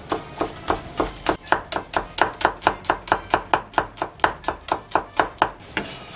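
Kitchen knife slicing green onions on a wooden cutting board: a steady run of sharp knife strikes on the board, about four a second. The strikes quicken a little after the first couple of seconds and stop near the end.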